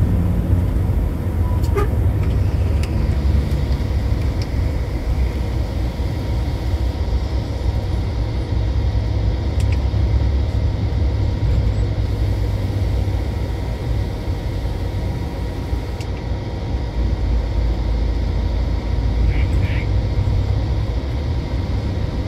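Mercedes-Benz OH-series bus on the move, a steady low engine and road rumble with no change in pace, and a few faint clicks and rattles over it.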